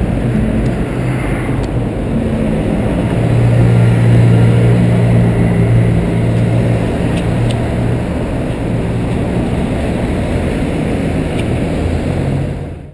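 A large box lorry's diesel engine running as it pulls away and drives off, over a steady traffic rumble. The engine hum is loudest a few seconds in, and the sound fades out quickly at the very end.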